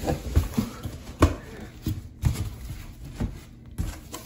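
A large corrugated cardboard shipping box being handled, with crumpled kraft packing paper inside: a string of irregular knocks and thumps with rustling between them.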